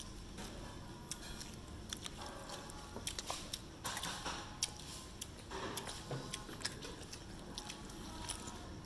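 Scattered light clicks and clinks of chopsticks and tableware, over a steady low background noise.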